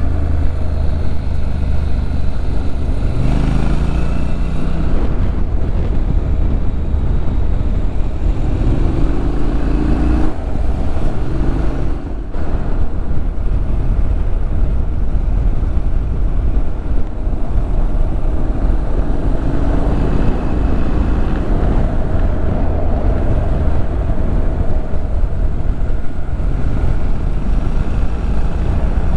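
Motorcycle riding along a road: the engine running with heavy wind rumble on the microphone, its note rising a few times as it accelerates.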